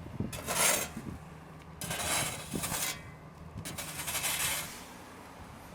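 Three long scraping strokes, each about a second long and a second or so apart, over a low steady hum.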